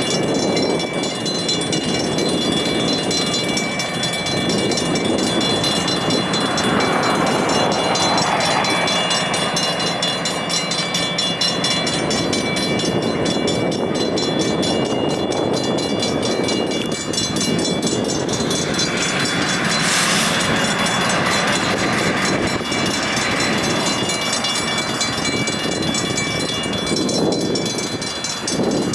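Railroad crossing bell, a Safetran hybrid electronic bell, ringing rapidly and without a break while the crossing is active, over the running diesel engine of the Central California Traction switcher locomotive moving through the crossing. A short sharp hiss comes about two-thirds of the way in.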